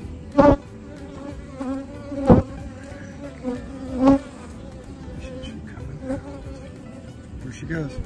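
Honey bees humming over the open frames of a hive, a steady drone. It rises in three brief louder surges about two seconds apart.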